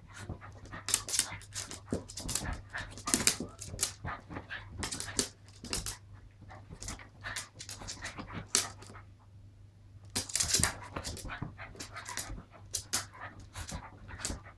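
Two small dogs play-fighting on a sofa: quick panting and breathy huffs mixed with scuffling of paws and bodies against the cushions, in short irregular bursts.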